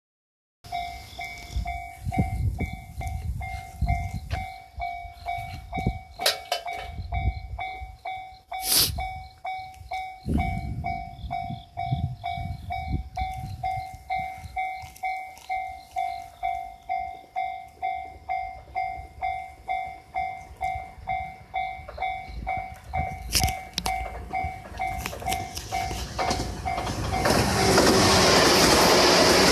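Japanese level-crossing warning bell ringing a steady, evenly repeated ding. Near the end a passing train rises to a loud, even rushing noise that covers the bell.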